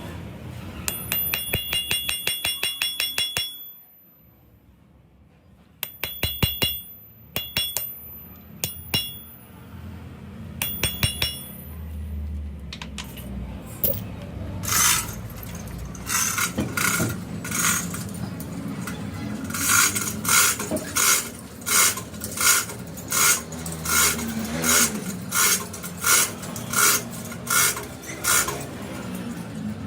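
Repeated ringing metal-on-metal strikes. A quick run of light taps comes first, then a short lull and scattered strikes, then steady heavier blows about one to two a second through the second half, over a low workshop hum.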